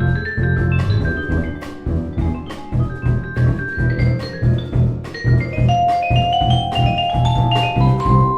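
Live jazz-fusion ensemble playing: vibraphone and other mallet percussion ring out over drums and a repeating low bass figure, with a held melody note entering about halfway through.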